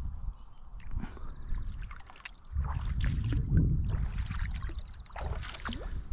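Shallow muddy water splashing and sloshing as a hand reaches in and feet wade along the dam's edge. A low rumble on the microphone is loudest around the middle.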